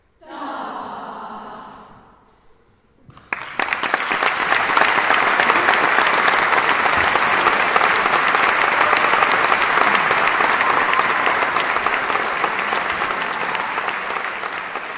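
The final chord of the performance dies away over about two seconds, then audience applause starts about three seconds in. The applause is dense and steady and tapers slightly near the end.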